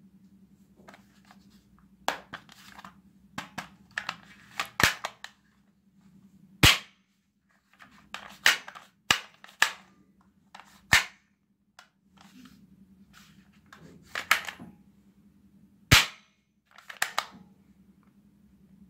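Plastic toy revolver snapping sharply as its trigger and hammer are worked, about five loud clicks spread out, with plastic clacking and rattling of handling between them.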